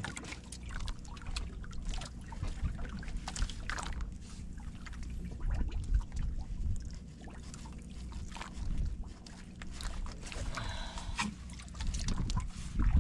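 Water lapping and trickling against the hull of a small outrigger fishing boat, over a low rumble of wind on the microphone, with scattered light knocks and taps throughout.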